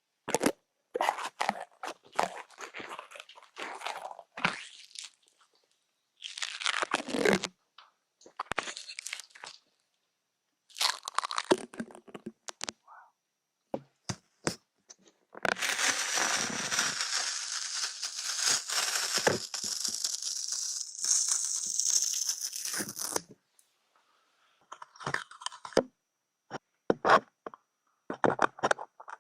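Close-up crinkling and tearing handling sounds: a run of short, irregular crinkles and rips, then about eight seconds of continuous tearing noise, then more short crinkles.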